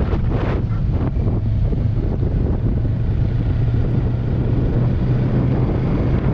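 Kawasaki Versys 650's parallel-twin engine running steadily while riding, with wind rushing over the microphone.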